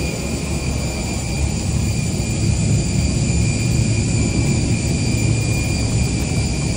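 Airport ramp noise: a steady, high turbine whine over a low rumble from a running aircraft turbine engine.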